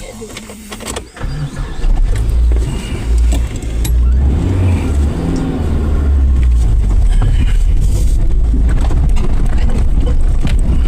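Suzuki Jimny 4x4 running, a steady low rumble that comes up loud about a second and a half in, after a few knocks.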